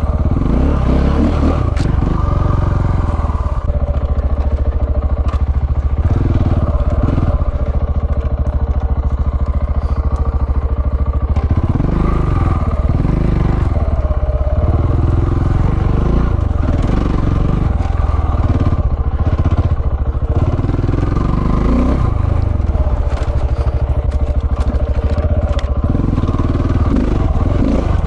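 Single-cylinder engine of a 690 dual-sport motorcycle running as it is ridden off-road, its note rising and falling with the throttle several times.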